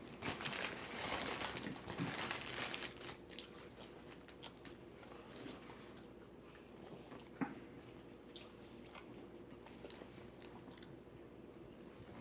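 Chewing and crunching close to the microphone, mixed with rustling, loudest for the first three seconds. After that come faint scattered clicks, with one sharper tap about seven seconds in.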